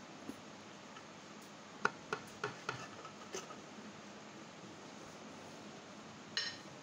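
Kitchen knife tapping and clicking against a wooden cutting board while trimming crusts off a slice of bread: a quick run of four or five sharp taps about two seconds in, then one more tap near the end.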